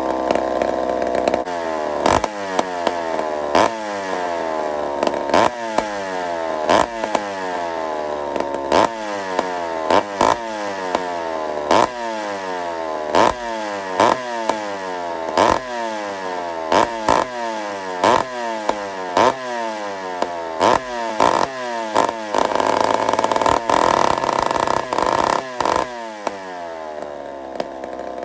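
McCulloch 797 two-stroke chainsaw running in uneven surges, roughly one a second, each a sudden rise followed by a falling pitch. About 22 seconds in it holds a higher, steadier speed for a few seconds, then drops back.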